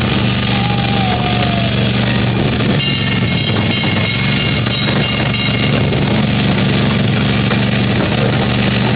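Kiddie train's small engine running steadily as the train rolls along, heard from a seat on board.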